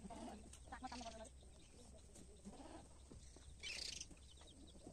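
Faint animal calls: a short, wavering bleat about a second in and a weaker one midway, with a brief hiss near the end over a steady low hum.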